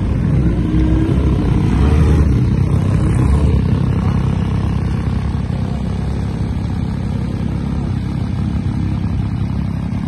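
MV Agusta Superveloce sport motorcycle engine running at idle, a steady low sound, slightly louder in the first few seconds.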